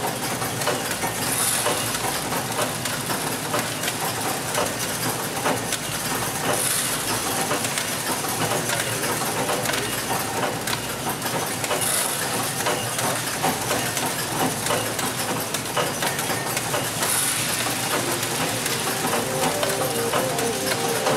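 High-speed automated vision inspection machine running: a steady mechanical clatter with many small rapid clicks, and a short burst of air hiss about every five seconds.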